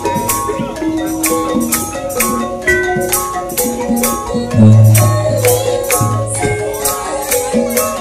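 A Javanese gamelan set of thick metal instruments being played hard. Metallophone keys and kettle gongs ring out in quick struck notes over large drum strokes, with a deep low stroke about halfway through.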